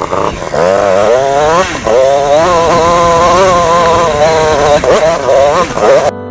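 Two-stroke KTM TPI enduro motorcycle engine revving up and down under load on a steep rocky climb. It cuts off suddenly near the end.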